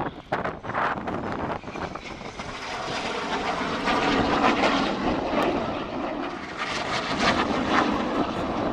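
Jet engine of an RAF BAE Hawk trainer, a rushing roar that swells over the first few seconds and peaks about four to five seconds in. Wind buffets the microphone.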